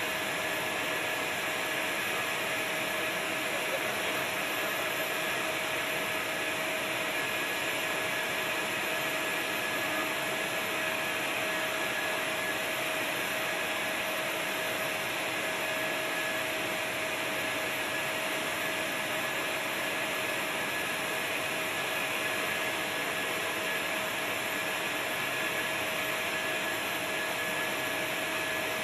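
Machinery running steadily: an even, loud rushing noise with a steady whine in two fixed tones, unchanging throughout.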